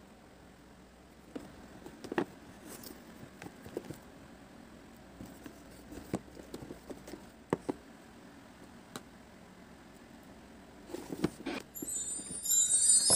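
Hands handling a cardboard gift box and opening its lid: scattered light taps and scrapes of cardboard. Near the end, music with a bright jingling sound comes in and is louder than the handling.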